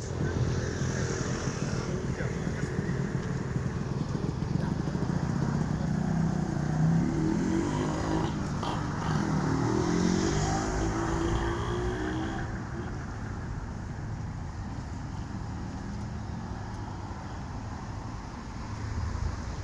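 BMW R1200GS Adventure's liquid-cooled boxer twin running, the throttle blipped several times in the middle so the revs rise and fall, then settling back to a steady idle.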